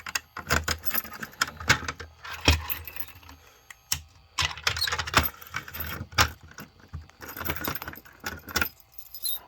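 Small metal objects being handled, jangling and clicking in irregular clusters, with a short lull about three to four seconds in.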